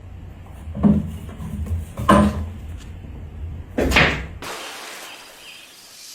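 Three loud knocks or bangs, one to two seconds apart, over a low rumble, after which the sound drops to a faint hiss.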